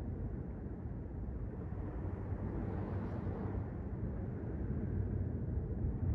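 Sea surf washing onto the beach: a steady low rumble that swells and brightens about halfway through as a wave breaks.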